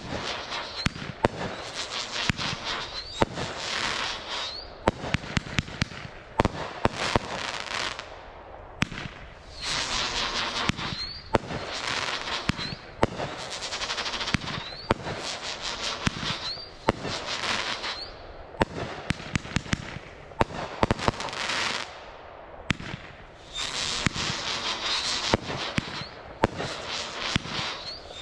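Brothers Zodiac firework going off: a long rapid run of sharp bangs, with hissing between them and short rising tones.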